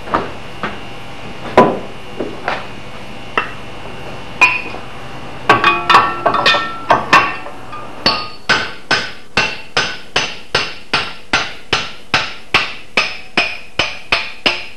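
Hammer blows on a steel racing axehead while its new hickory-style handle is being test-fitted in the eye, each blow followed by a short metallic ring. A few scattered strikes at first, a quick flurry, then steady blows about two and a half a second from about eight seconds in.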